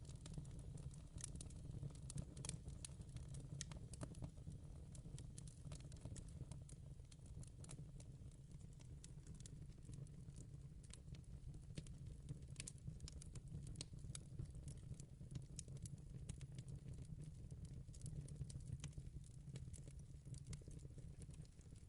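Wood fire in a fireplace crackling quietly: irregular sharp snaps and pops over a steady low rumble.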